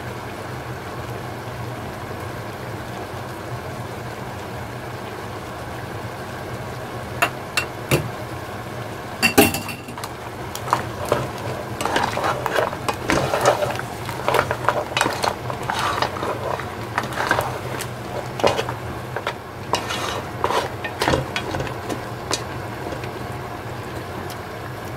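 Crab and leeks sizzling steadily in a cast-iron pot. From about seven seconds in come a few sharp knocks, then a long run of clattering and scraping as a wooden spatula turns the hard crab shells against the pot.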